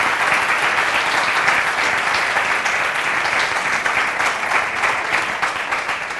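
Audience applauding, a dense, steady clapping of many hands that eases slightly near the end.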